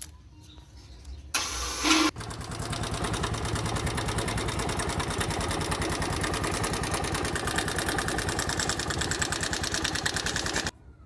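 Bajaj motorcycle's single-cylinder engine cranked briefly, catching about two seconds in and running with a fast, even beat before cutting off suddenly near the end. The engine has a knock that calls for a piston replacement.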